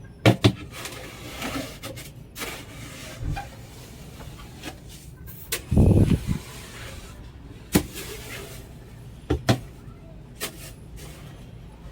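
Sand and gravel in a coop floor being scraped and levelled by hand, with irregular sharp knocks and a heavier thud about six seconds in.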